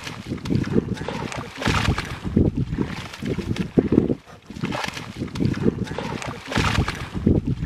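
Splashing and squelching in shallow muddy water as hands and feet grab at a fish, with wind buffeting the microphone.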